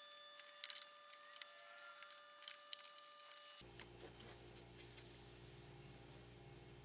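Near silence: a few faint light clicks, then a low steady hum from about three and a half seconds in.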